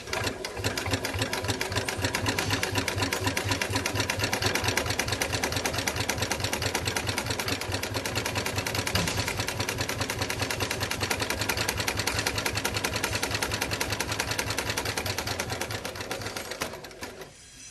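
Heavy-duty flatbed industrial sewing machine stitching thick multi-layer webbing for a cargo sling, its needle strokes a rapid, even clatter over a steady motor hum. It starts right away and runs steadily, then slows and stops near the end.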